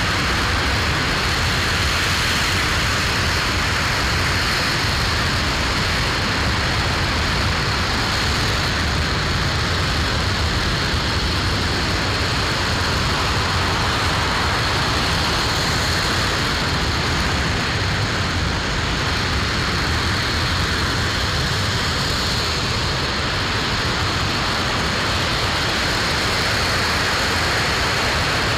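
Aerojet Rocketdyne RS-25 liquid-hydrogen/liquid-oxygen rocket engine firing at steady thrust during a ground hot-fire test: a loud, continuous rushing noise that holds an even level without any change.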